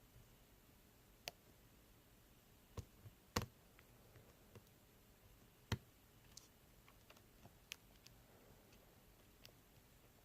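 Light, irregular metallic clicks of a lock pick and tension wrench working the pin stacks of an ASSA Ruko 2 lock core, as pins are lifted and set. The clicks come singly, a few seconds apart, the sharpest a little over three seconds in and again near the middle.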